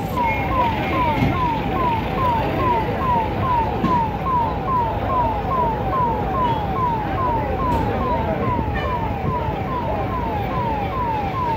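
Fire engine's electronic siren on a rapid yelp: a short falling tone repeated about two to three times a second, over a steady low rumble.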